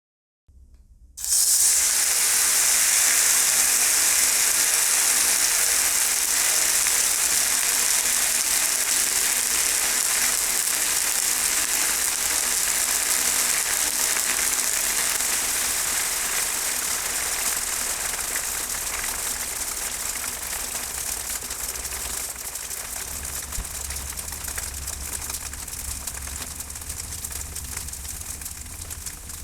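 Red-hot metal ball sizzling on noodles: a loud, steady hiss that starts abruptly about a second in and slowly fades.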